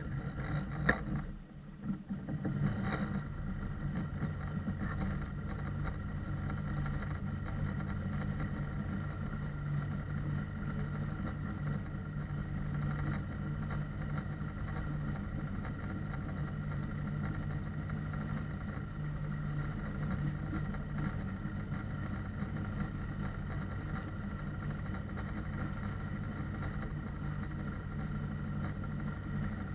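A small boat's outboard motor running steadily, with a brief dip and a couple of knocks about two seconds in.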